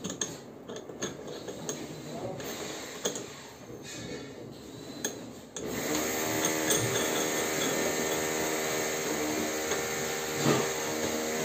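Light clicks and knocks of parts being handled, then a little past halfway a power drill starts and runs steadily at an even speed.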